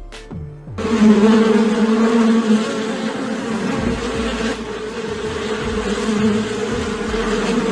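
A swarm of wasps buzzing around their paper nest: a dense, steady drone of many wings that starts about a second in.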